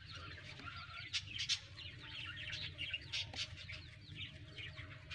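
Faint chirping and clucking of chickens and small birds, many short high chirps scattered throughout.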